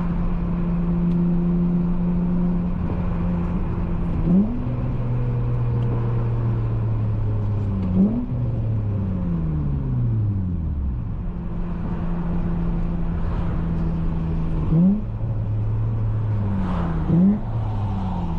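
Honda J32A3 V6 through a loud Skunk2 Megapower single-exit exhaust, running steadily. Four short sharp revs come about four, eight, fifteen and seventeen seconds in, and the engine note drops and winds down between them as the car slows.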